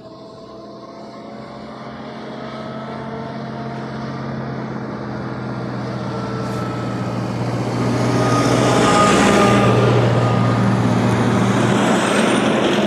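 A vehicle's engine running with a steady low hum, growing louder over several seconds as it comes closer, with a rushing noise that is loudest near the end and a short rising whine at the very end.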